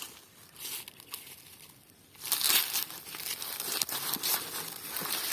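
Dry corn plants rustling and crackling as ears of corn are picked by hand. The rustle is faint and broken at first, then becomes louder and denser a little over two seconds in.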